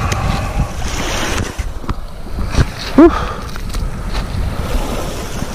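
Wind buffeting the microphone, with surf behind it. A sharp click comes about two and a half seconds in, then a short, loud, rising vocal sound from a person just after three seconds.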